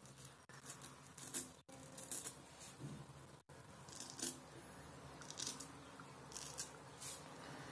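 Kamisori (Japanese straight razor) scraping lathered stubble off the upper lip in about a dozen short, irregular strokes, each a brief crisp rasp.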